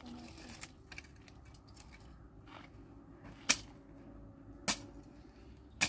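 Firewood being broken up: three sharp cracks about a second apart in the second half.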